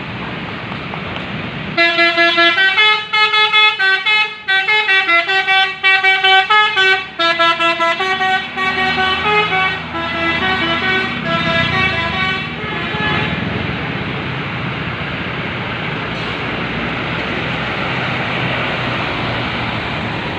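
A bus's 'basuri' telolet musical horn plays a quick multi-note tune for about ten seconds, starting about two seconds in. Steady road and engine noise runs underneath and carries on after the horn stops.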